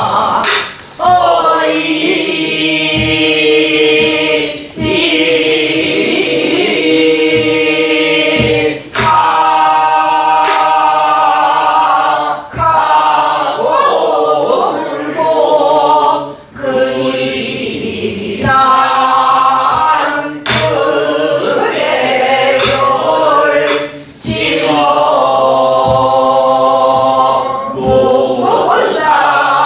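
Several voices singing a Korean southern folk song (Namdo minyo) together in long phrases with short breaks between them, while buk barrel drums are struck with sticks to keep the rhythm.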